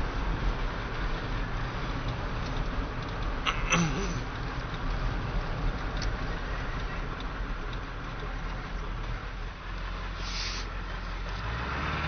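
Ford 7.3L PowerStroke V8 turbo diesel idling steadily through a straight pipe, with the muffler and catalytic converter removed. A sharp click sounds about four seconds in and a short hiss about ten seconds in.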